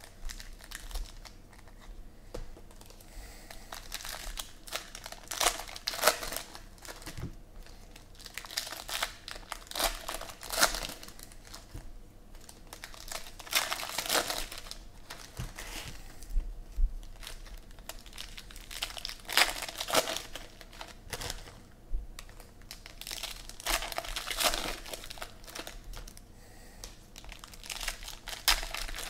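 Foil trading-card packs of Panini Prizm football cards being torn open and crinkled by hand, in repeated bursts of crackling every few seconds.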